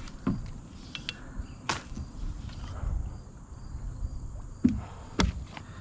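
Scattered knocks and clicks of fishing tackle being handled in a kayak while working a snagged lure loose, over low handling rumble. A faint insect drone runs underneath.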